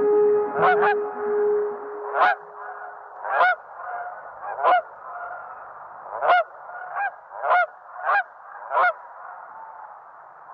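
Canada geese honking in flight: about ten loud single honks at uneven intervals over a steady background of fainter honking from the flock. A held brass-like music chord fades out in the first two or three seconds.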